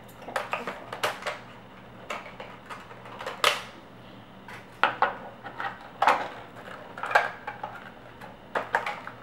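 Plastic toy playset parts and packaging being handled: irregular clicks, taps and clatters, about a dozen, some sharper than others.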